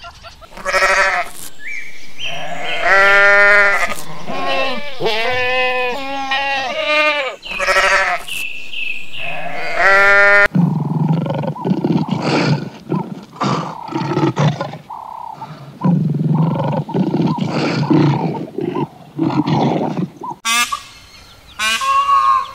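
A run of animal calls: wavering bleats for the first ten seconds or so, then a series of lion roars and grunts, and near the end a peacock's loud call.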